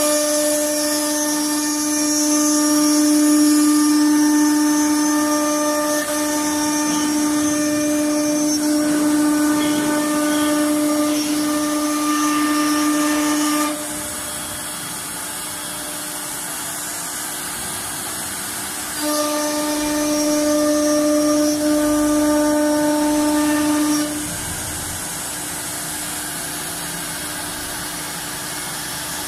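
The spindles of a four-spindle SA-1325W wood CNC router routing wood panels give off a steady high-pitched whine. The whine stops about halfway through and comes back for a few seconds near the end, over a constant lower machine hum.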